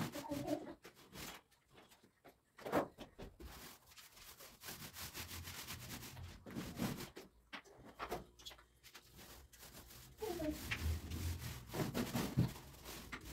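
Paint roller on an extension pole rolling paint onto a plaster wall, a repeated rubbing sound with each up-and-down stroke.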